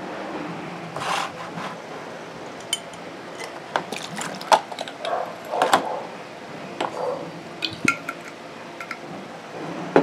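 Liquid poured from a glass bottle into a plastic tub, followed by scattered clinks, knocks and small splashes as a butterfly knife is put into the liquid to soak.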